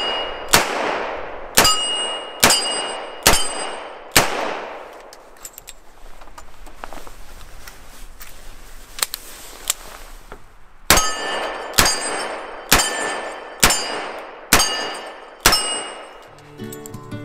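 Smith & Wesson Model 625 JM .45 ACP revolver fired five times, about one shot a second, each shot followed by a short metallic ring of hit steel targets. A quieter pause with small clicks follows while the cylinder is reloaded with a moon clip, then six more shots at the same pace. Acoustic guitar music comes in near the end.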